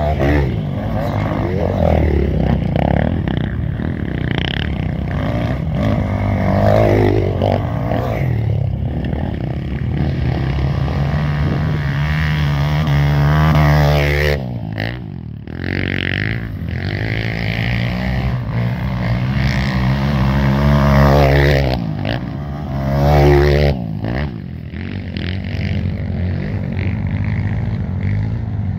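Off-road dirt bike engines revving hard as the bikes climb a steep dirt trail and pass close. The engine note rises in pitch twice, about twelve and twenty seconds in, and drops away sharply each time.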